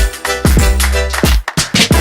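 Electronic dance music with a heavy bass and a steady drum beat.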